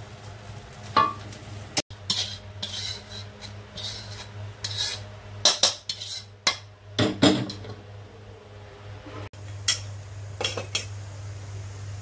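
Metal spatula scraping and clanking against a wok, in irregular strokes, as fried noodles are scooped out onto a plate. A steady low hum runs underneath.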